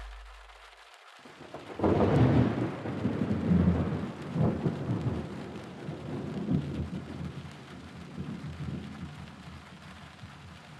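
Thunder with rain: a sudden rumbling crack about two seconds in that rolls on and slowly fades, over a steady hiss of rain.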